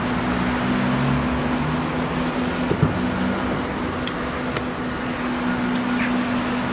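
Steady low hum of a vehicle engine running nearby, with a short knock about three seconds in as a car's rear door is opened.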